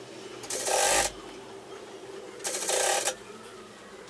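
Industrial straight-stitch sewing machine running in two short bursts of about half a second each, stitching the edge of a fabric cuff.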